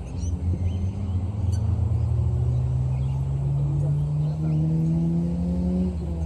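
A vehicle engine accelerating, its low hum rising slowly in pitch, then dropping suddenly at the end.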